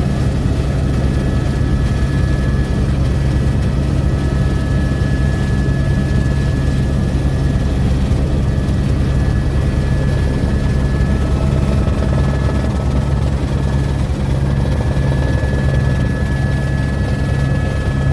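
Helicopter in flight heard from on board: a loud, steady rotor and engine drone with a thin, steady whine on top.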